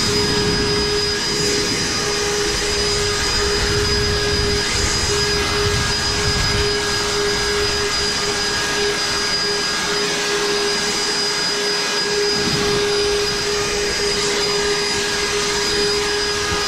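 Battery-powered EGO backpack leaf blower running steadily at high speed, a loud rush of air with a steady whine, blowing grass clippings off a concrete sidewalk.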